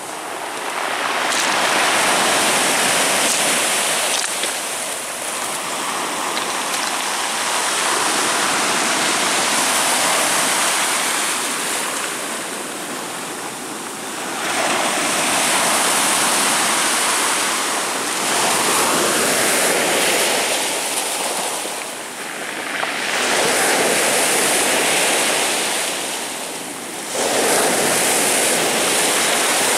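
Rough Black Sea surf breaking on the shore, a loud rushing wash that swells and eases as each wave comes in, about every four to six seconds.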